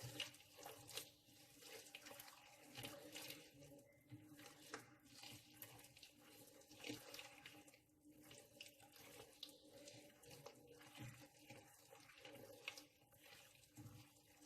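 Faint, irregular wet squelching and small clicks of an oily cookie mixture being stirred in a bowl.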